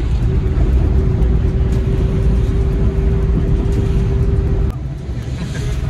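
Engine and road noise inside a small car driving on a city road, a steady low rumble with an even hum. Near the end the hum stops and the noise drops a little.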